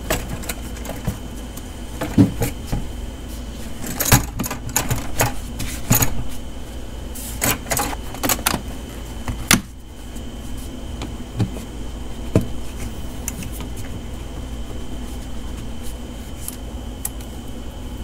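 Ribbed plastic air intake tube being handled and pushed onto the throttle body of a Ford 6.8L V10: irregular clunks, knocks and plastic rubbing through the first ten seconds or so, then only a few light clicks. A steady low hum with a faint high whine runs underneath.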